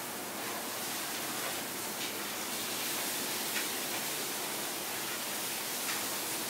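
Steady rushing hiss of commercial kitchen background noise, with a few faint light clicks.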